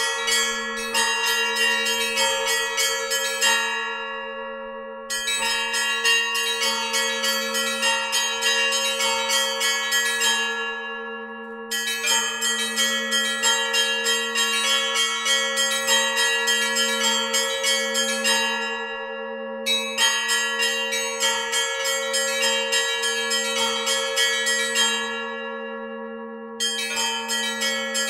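Russian church bells rung together in the Novodevichy style. The small chiming bells strike quick patterned runs that break off briefly every few seconds, while two deeper bells keep humming underneath.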